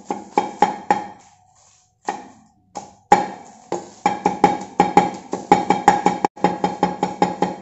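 Cleaver chopping a red onion on a thick wooden chopping board, each stroke a ringing knock. A few scattered strikes give way, about three seconds in, to steady fast mincing at about four strokes a second.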